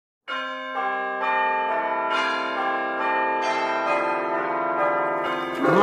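Bells ringing a slow sequence of notes, a new strike about every half second, each note ringing on under the next.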